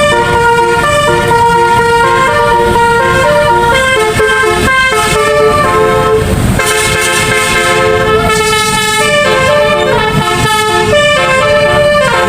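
Bus telolet horn, a multi-trumpet air horn, playing a tune of sustained notes that step up and down continuously, over a low rumble.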